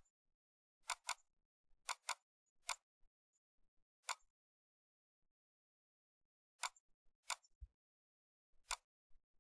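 Faint computer mouse clicks, about ten in all: two quick double-clicks about one and two seconds in, then single clicks spaced out.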